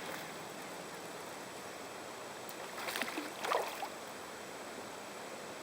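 Water sounds around a kayak: a steady hiss, with a few small splashes about three seconds in.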